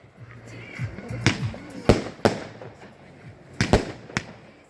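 Fireworks going off in a display: about six sharp bangs, two of them in quick succession a little past the middle.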